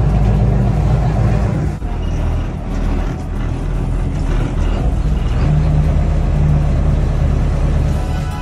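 Boat engine idling: a steady low rumble that dips and turns more muffled about two seconds in, as the sound is heard from inside the cabin.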